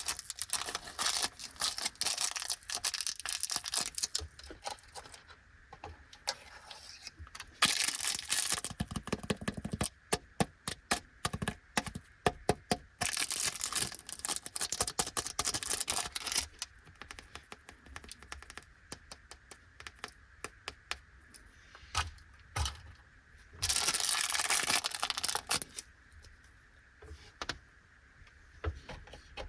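Plastic snack wrappers crinkling and being torn open, with runs of sharp clicks and taps as the wrapped stick candies and snacks are handled, a fast run of clicks about a third of the way in.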